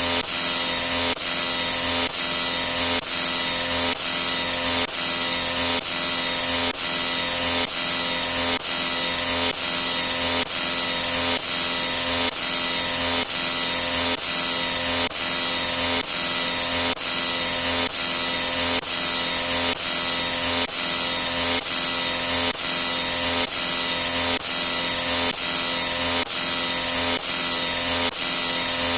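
Loud, harsh hissing sound effect with steady tones underneath, cut off and restarted about every 0.6 s.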